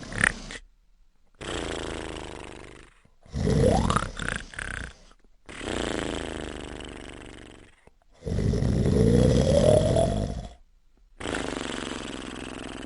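A person snoring. Two loud, rattling snores alternate with three softer, smoother breaths, each lasting about two seconds.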